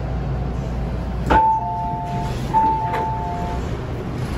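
Door chime of an MTR M-train, a two-note electronic chime sounding twice as the doors open, with a sharp click at the start of each chime. A low rumble under it stops at the first click.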